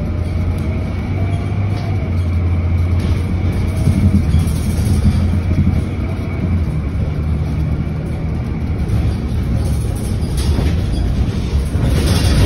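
Transit bus running along the road, heard from inside the passenger cabin: a steady low engine and drivetrain drone with road rumble.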